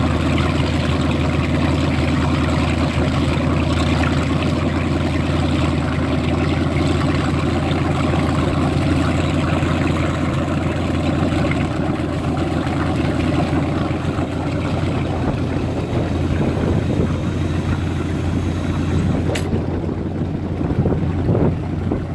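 Chrysler jet boat's inboard engine idling steadily at the dock, its jet drive churning water at the stern. A single sharp click comes about nineteen seconds in.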